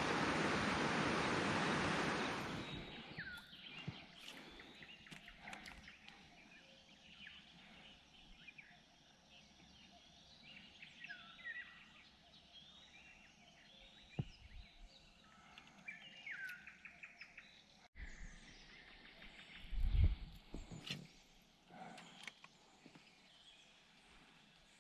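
Loud rushing water, like river rapids, that cuts off abruptly about two seconds in. After that, birds chirping and singing over quiet outdoor ambience, with a few low thumps, the loudest about twenty seconds in.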